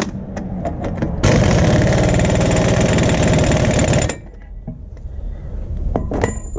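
Impact wrench hammering for about three seconds on a front wheel hub's axle nut, then stopping abruptly, with a few sharp clicks of tools before it and a couple of knocks near the end.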